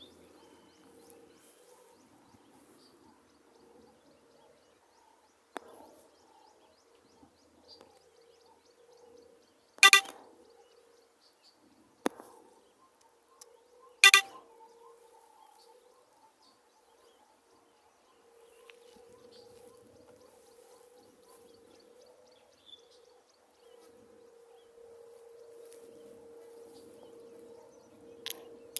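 Birds calling: two loud, short calls about four seconds apart, over faint chirping and a steady low hum.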